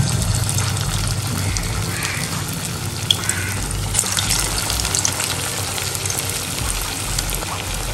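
Vegetable kofta balls deep-frying in hot oil: a steady sizzle with many small crackles and a sharper pop about three seconds in.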